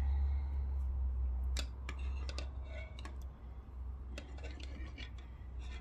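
Stiff copper wire of a dragon armature being twisted and handled, giving scattered light clicks and ticks from about a second and a half in, over a low steady hum.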